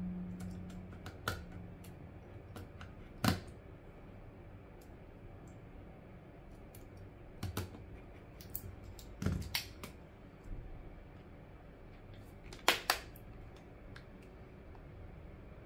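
Scattered small sharp clicks and taps from reassembling an opened iPhone 6: a precision screwdriver on the small internal screws, parts pressed into place, and a quick double click about 13 s in as the new display is pressed shut into the aluminium frame.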